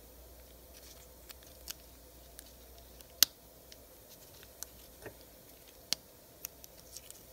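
Scattered light clicks and taps of thin vanes being fitted by hand into the slots of an air drill's rotor, metal parts knocking together; the sharpest click comes about three seconds in and another near six seconds.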